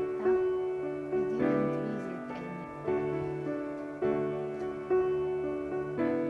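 Background music: slow piano chords, a new chord struck about every second and left to ring.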